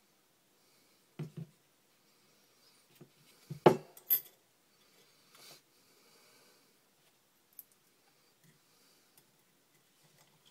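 Small metal objects clinking and knocking against a hard surface: two knocks about a second in, a louder cluster of clinks a little later, then a few faint ticks.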